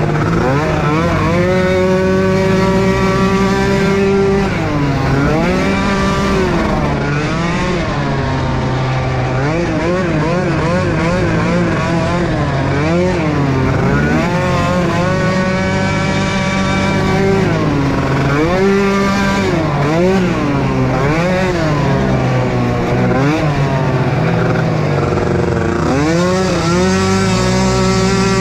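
Small youth-ATV engines racing on a motocross track, several at once, revving up and dropping off again and again as the quads take jumps and corners.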